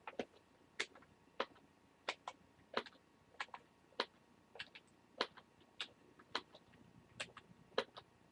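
Faint, irregular clicking, about two sharp clicks a second.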